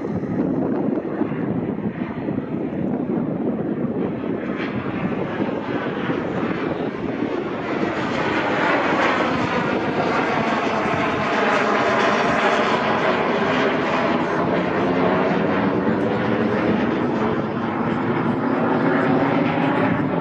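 Canadair CT-133 jet trainer's Rolls-Royce Nene turbojet making a low flyby: continuous jet noise that swells about eight seconds in, with a sweeping, phasing whoosh as the aircraft passes.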